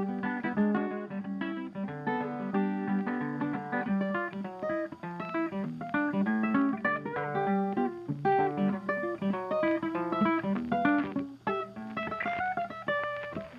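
Background instrumental music led by a guitar, with many quick notes.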